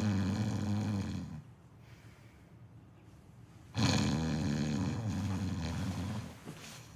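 Snoring: one long snore that ends about a second and a half in, a quieter pause, then a second snore of about two and a half seconds starting near the four-second mark.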